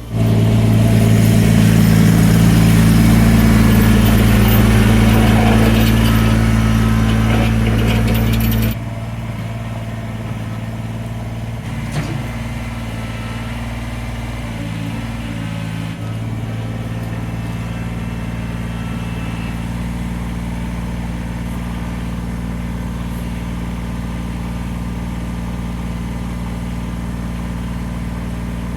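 Tractor engine running steadily, at first louder with a high rushing noise over it, then suddenly dropping to a quieter, even run about nine seconds in. A single short knock comes a few seconds after the drop.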